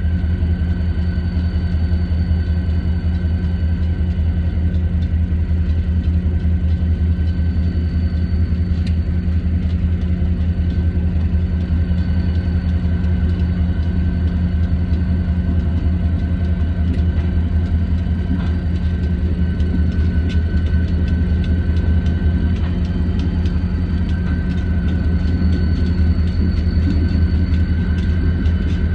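Diesel locomotive engine running steadily with an even low drone and a faint high whine above it, which steps up slightly about two-thirds of the way in.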